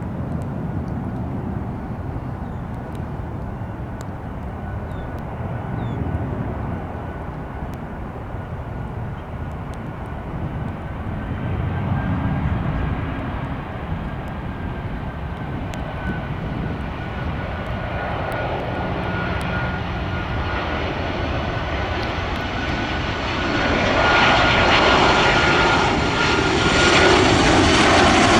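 Jet airliner's engines approaching: a steady high whine over a rumble that grows louder, loudest in the last few seconds as the aircraft comes close.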